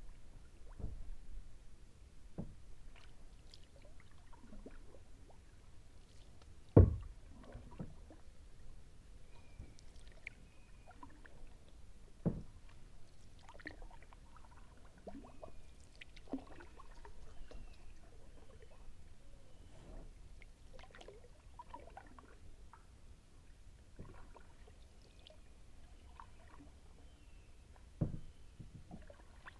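Kayak paddle strokes: soft splashes and drips of water as the blade dips. A few dull knocks stand out, the loudest about seven seconds in, another near twelve seconds and one near the end.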